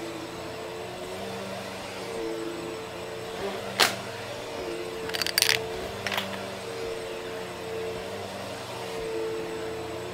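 Upright vacuum cleaner running steadily on carpet, its motor pitch wavering slightly as it is pushed back and forth. Sharp clinks come about four seconds in, in a quick cluster around five and a half seconds, and once more near six seconds, as coins are sucked up and rattle through the machine.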